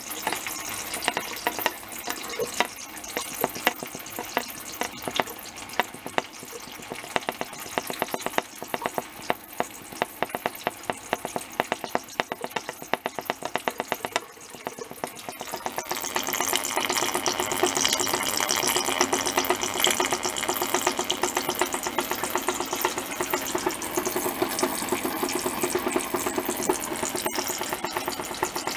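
Liquid pouring from a tilted vessel through a plastic funnel into a glass jar, a rapid trickling and splashing that grows louder about halfway through.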